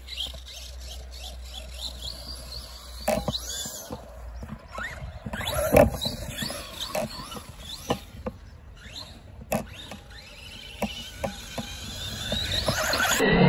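Arrma Big Rock RC truck's electric motor whining in short rising and falling bursts as it is driven on and off the throttle across grass, with scattered sharp knocks. The whine grows louder near the end.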